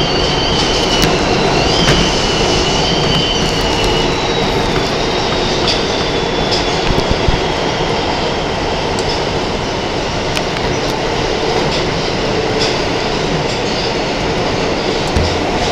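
R160 subway train running at speed through a tunnel: a steady rumble of wheels on rail. For the first five seconds or so the wheels squeal in a high, wavering double tone that then dies away, and a few sharp clicks from the track come through here and there.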